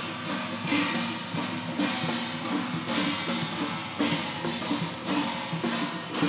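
Chinese procession percussion: drums and cymbals struck in a steady repeating rhythm, with a strong crash about once a second over a ringing, sustained tone.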